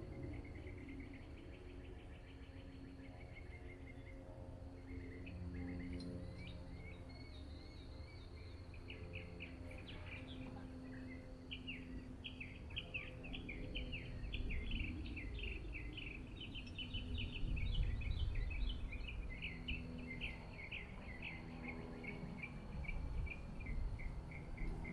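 Rapid, high-pitched chirping trills of outdoor wildlife, sparse at first and growing dense and continuous about halfway through, over a low rumble.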